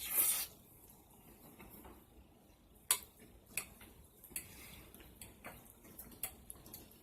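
Cutlery clicking against a dish while eating noodles: a brief noisy rush at the start, then a few sharp, separate clinks about a second apart.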